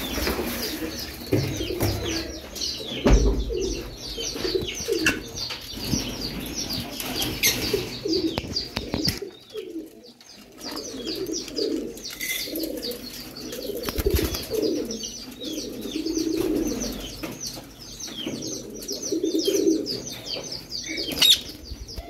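Pigeons cooing in low repeated phrases over constant high chirping of small birds, with a couple of dull handling thumps about three and fourteen seconds in.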